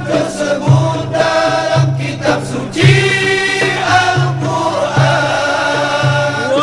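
Male nasyid choir singing in harmony, with a low pulse repeating about once a second underneath.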